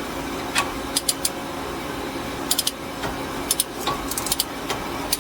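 Ratchet of a torque wrench clicking in short, uneven runs as the front axle nut is tightened toward 180 lb-ft. A steady low hum runs underneath.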